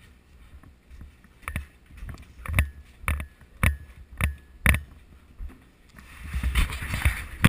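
Brisk footsteps on a hard floor: seven heavy steps about two a second. Near the end comes a louder rustling hiss that cuts off suddenly.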